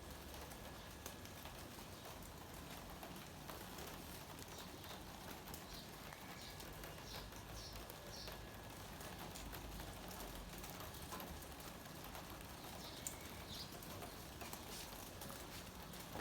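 Light rain falling, with scattered drops ticking and pattering on hard surfaces. A few short bird chirps come in now and then.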